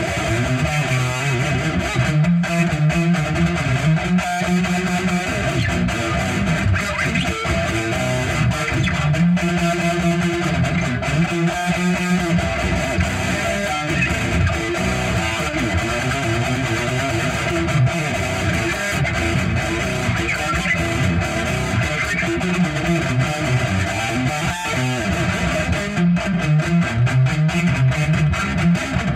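Electric guitar playing an instrumental piece, picked notes over a continuous, full musical texture at a steady level.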